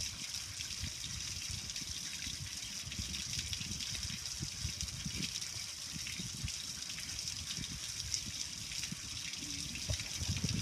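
Water from a garden hose running steadily over a gas grill's lid, streaming and dripping off its edges and splashing onto the concrete below.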